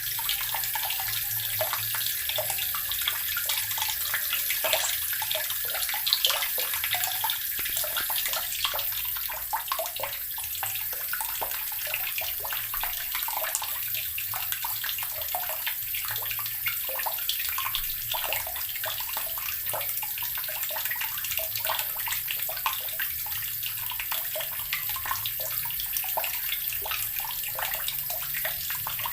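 Water running from a tap into an earthen barrel: a steady pouring stream full of small splashes and gurgles, at an even level throughout.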